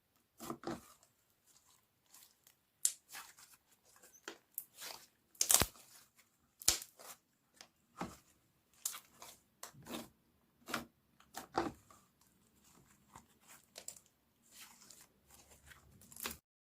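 Slime being squeezed and poked by hand, giving irregular crackling pops and clicks that stop just before the end.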